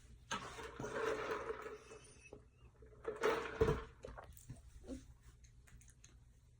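Soft breathy mouth and throat sounds from a person between forced burps: one stretch about a second and a half long, then a shorter one about three seconds in, followed by faint clicks and smacks.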